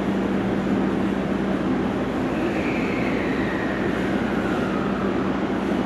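Electric train at a station platform: a steady rumble with a constant low hum, and a fainter tone that slides down in pitch through the middle.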